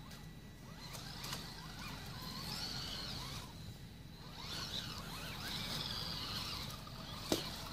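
Radio-controlled scale crawler truck's electric motor and gears whining in two spells as it climbs over roof tiles, with a single sharp knock near the end.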